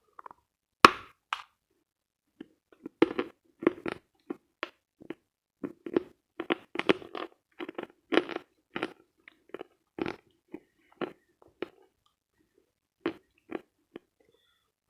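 Dry chalk being bitten and chewed close to the microphone. A sharp loud snap of a bite comes about a second in, followed by a long run of irregular crunches and a few more near the end.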